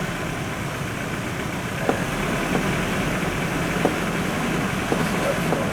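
Ford Ranger FX4 pickup crawling over a rutted dirt road in two-wheel drive, heard from inside the cab: a steady low engine and tyre rumble with about five short knocks as the wheels and suspension go over the ruts.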